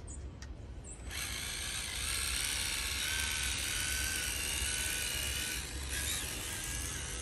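Electric motor and geared drivetrain of a 1/10-scale Losi Night Crawler SE RC rock crawler whining steadily as it crawls slowly, growing louder about a second in as it gets moving.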